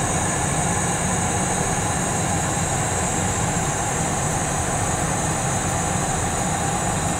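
Steady cockpit noise of a Cessna Citation Mustang in cruise flight: an even rush of airflow and the twin Pratt & Whitney Canada PW615F turbofan engines, with a thin steady high tone over it.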